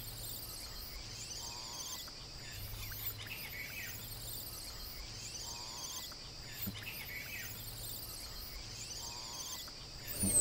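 Outdoor tropical ambience: a steady high-pitched insect drone, with short bird chirps every few seconds.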